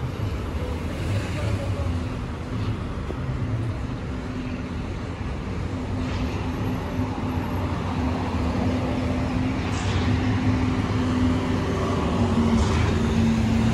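City street traffic: car and bus engines running and passing on the road, a steady engine hum under the noise of tyres, getting louder over the last few seconds.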